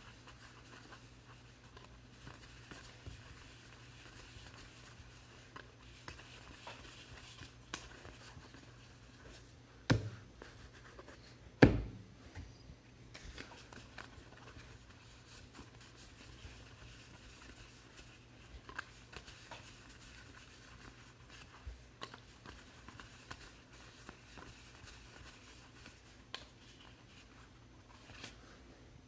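Faint rustling and light clicks of trading cards being handled and flipped through, with two sharper knocks, about ten and twelve seconds in.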